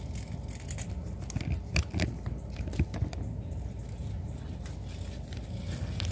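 A few short crunchy scrapes and clicks of sandbox sand being handled, over a low steady rumble.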